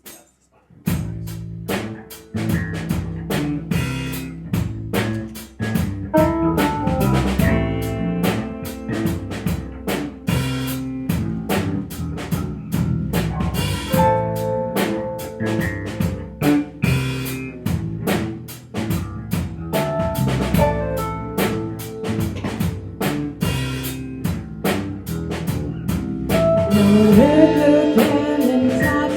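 A live band playing an instrumental intro: a drum kit keeps a steady beat with kick, snare and rimshots under bass and guitar notes.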